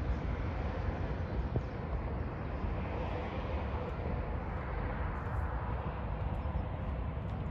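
Steady outdoor ambience: an even low rumble and hiss with no distinct events, apart from a faint click about a second and a half in.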